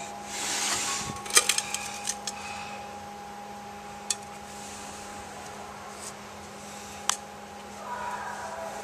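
Paper towels rustling as a metal part is wiped, then a quick run of light metallic clinks and taps at about a second and a half in, with single clicks near four and seven seconds as metal parts are handled. A steady electrical hum runs underneath.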